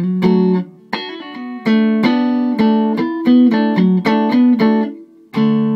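Electric guitar strumming a short rhythmic phrase of major chords barred with the pinky, moving between chord shapes and an inversion with the third in the bass. There is a brief pause about a second in, then steady strums with the chords changing, and one last strum near the end.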